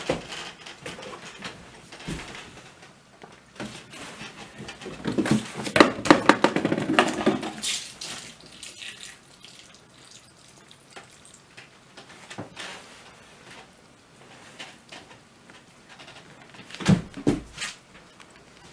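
Homemade cardboard Rube Goldberg machine running: balls and parts clicking and knocking through cardboard tubes and chutes, with a dense burst of clattering about five to eight seconds in and a couple of sharp knocks near the end. Milk pours from a tipped jug into a ceramic bowl of cereal.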